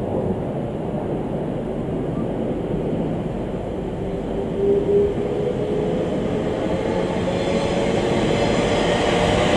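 Greater Anglia Class 720 electric multiple unit approaching slowly over junction pointwork: a steady rumble of wheels on rail that grows gradually louder, with a faint tone that rises slightly in pitch from about halfway through.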